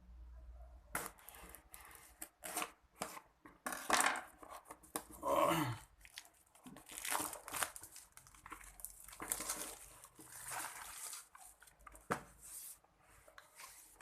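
Product packaging being torn open and crinkled by hand during unboxing, in irregular rustling strokes.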